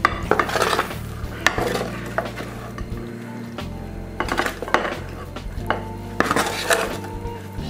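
Roasted potatoes and mushrooms being scraped off a metal baking tray with a wooden spoon and landing on a ceramic plate: scraping, knocking and light clinks in four or five short bursts.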